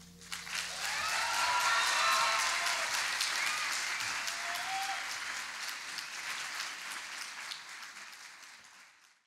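Audience applauding with cheers and shouts after a live song ends; the clapping swells quickly at the start, then gradually fades away and cuts off near the end.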